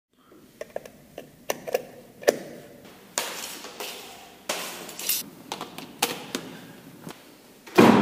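A string of sharp knocks and taps with two longer scraping sounds, then a loud, heavy thud near the end that rings on in a small, hard-surfaced room.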